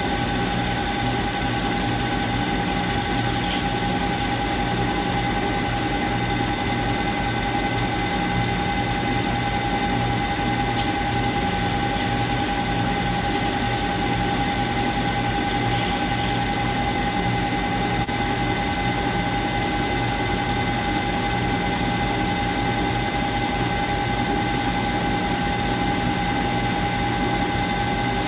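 Clausing metal lathe running steadily, with a constant high whine from its drive over a low hum.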